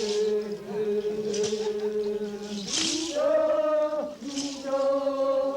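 Ritual chanting by a group of men singing long held notes in unison, stepping to a higher pitch about halfway through, with a rattle shaken in a steady beat about every one and a half seconds.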